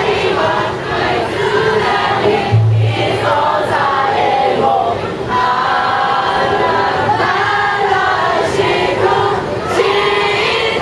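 Live rock band playing loud with a female singer, with crowd voices mixed in.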